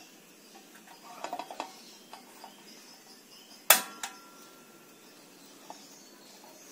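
A single sharp metallic clank of kitchenware about three and a half seconds in, ringing briefly afterwards, with a few faint clinks before it.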